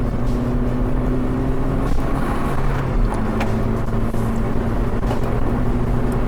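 Honda Civic driving on a newly fitted aftermarket exhaust, heard from inside the car: a steady engine and exhaust drone, with the pitch shifting slightly about two seconds in. A few light knocks come from the road.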